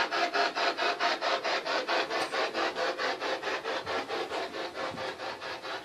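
Spirit box, a radio that scans rapidly through stations, sweeping through frequencies: a steady rhythmic chop of static, about eight bursts a second. No voices come through.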